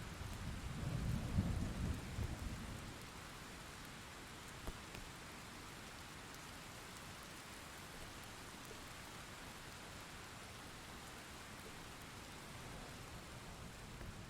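Thunderstorm: a low roll of thunder rumbles through the first few seconds and dies away, leaving steady rain falling.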